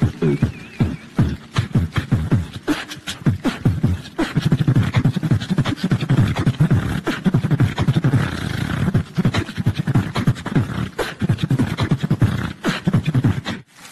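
Beatboxing into a handheld microphone: vocal imitations of bass drum and snare drum in a fast, dense run of sharp hits mixed with low buzzing vocal sounds, cutting off abruptly near the end.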